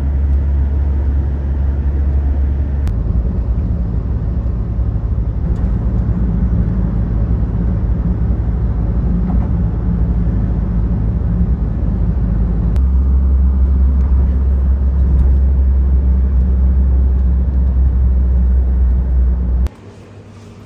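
Steady low rumble of road and engine noise heard inside a moving Ford Ranger pickup. It cuts off suddenly near the end.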